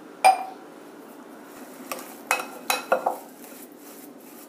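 A steel spoon clinks against a glass mixing bowl while stirring a thick, crumbly idli batter. One loud, ringing clink comes about a quarter second in, then a quick run of about five clinks between two and three seconds in.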